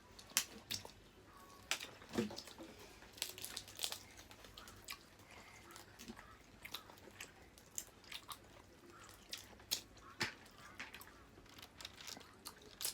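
Chewing and crunching of seafood being eaten by hand, with irregular small clicks and crackles of shells scattered throughout.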